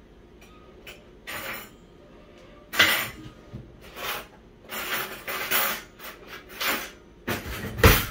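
Kitchen handling noise while sandwich toppings are being put on: a string of short, irregular bursts of rustling and light clatter, the loudest near the end.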